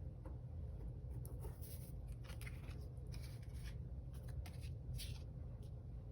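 Faint handling of Pokémon trading cards and their foil packs: soft, irregular rustles and slides.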